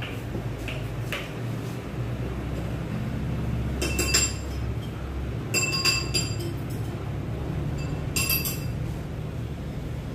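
Kitchenware clinking with a bright ringing tone: three short clusters of clinks, about four seconds in, around six seconds and near eight seconds, with a few fainter ticks at the start, over a steady low hum.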